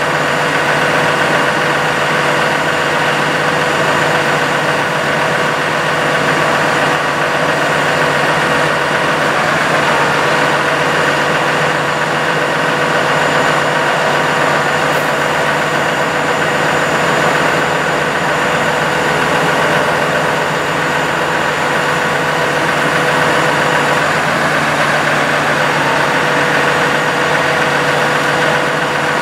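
Dodge 5500 bucket truck's engine running steadily at idle while the Versalift aerial lift's boom is operated.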